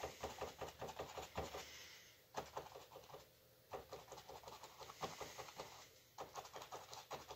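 Paintbrush tapping fresh paint onto a canvas: rapid, faint dabbing taps in runs, broken by short pauses about two and three seconds in.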